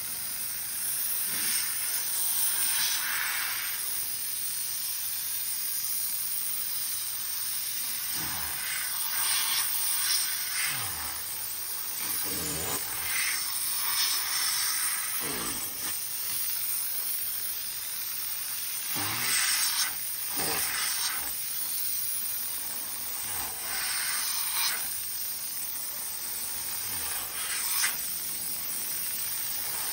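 Pressure washer spray hissing steadily as the water jet cleans the metal and fabric belts of a conveyor machine; the hiss swells and fades over and over as the jet sweeps across them.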